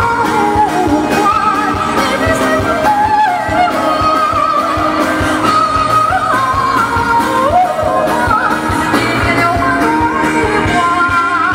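A woman singing live with a band, holding long, wavering high notes on an open vowel and sliding between them.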